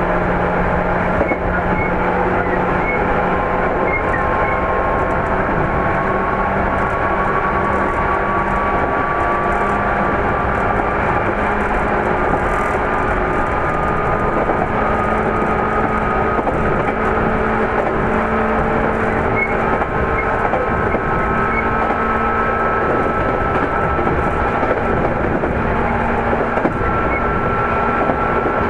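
JR 205 series 3100 train running, heard from inside the motor car: MT61 traction motor and gear whine rising slowly in pitch as speed builds, over a steady rumble of wheels on rail.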